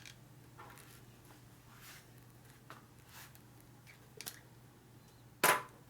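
Light clicks and taps of hand tools and small metal parts being handled, with one louder sharp metallic clack about five and a half seconds in, over a steady low hum.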